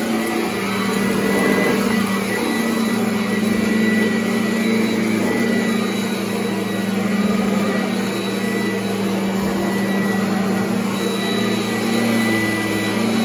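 Kirby upright vacuum cleaner running steadily while vacuuming carpet: an even motor hum with a thin high whine above it.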